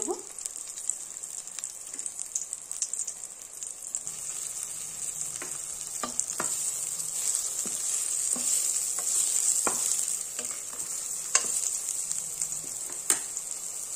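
Brinjal (eggplant) slices shallow-frying in hot mustard oil in a kadai: a steady sizzle that swells a little midway, with a few sharp clicks of a spatula against the pan as the slices are turned.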